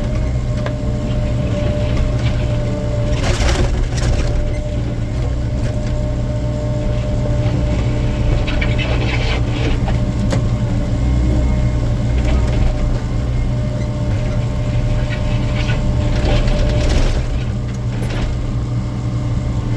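An excavator's diesel engine runs steadily under hydraulic load. Three bursts of scraping and clattering come through it as the bucket scoops and dumps broken concrete waste.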